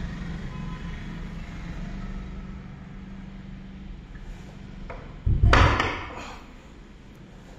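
A steady low hum, then a single loud, brief thump with a rustle about five and a half seconds in.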